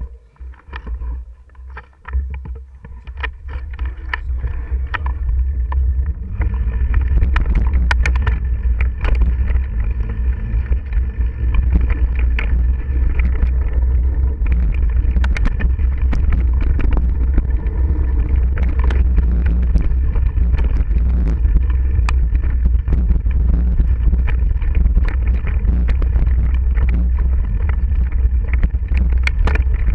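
Mountain bike rolling fast along a dirt trail, picked up by a camera on the ride: a heavy low rumble of wind buffeting the microphone and trail vibration, with frequent clicks and knocks from bumps and rattling parts. It builds over the first six seconds as speed picks up, then holds steady.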